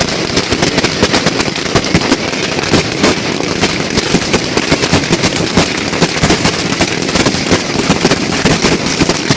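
Fireworks going off in a dense, continuous run of rapid cracks and bangs, many a second and without a pause.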